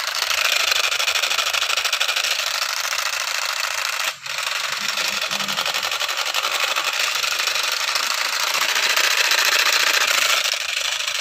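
Battery-powered toy pistol firing: a steady, very rapid rattling buzz, cut off briefly about four seconds in.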